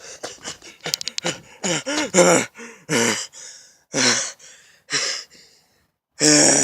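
A person gasping and panting for breath after running, in a string of short, loud, voiced gasps. A few sharp clicks come about a second in.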